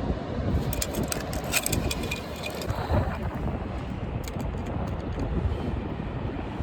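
Wind buffeting the microphone with a steady low rumble, with clusters of small sharp clicks and rattles about a second in and again around four seconds.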